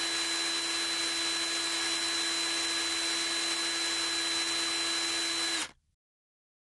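Electric drill motor running at a steady speed: an even whirring hiss with a steady high whine, which cuts off abruptly near the end.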